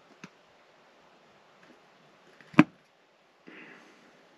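Small clicks and one sharp, loud knock of a hard object, with a short rustle just after it: things being handled and set down in a small space.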